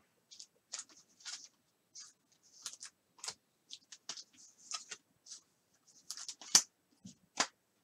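Baseball trading cards being handled: scattered light clicks and rustles of card stock sliding and tapping, with two sharper taps near the end.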